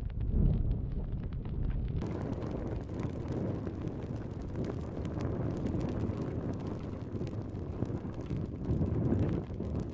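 Fire burning with a low rumble and many small crackles and pops.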